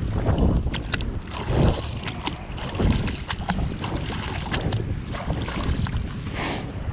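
Wind buffeting the microphone in a steady low rumble, with scattered small clicks and rustles.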